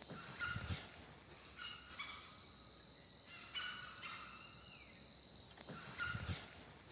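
Fowl-like bird calls repeating every second or two in the forest, with low dull thuds about half a second in and again near the end.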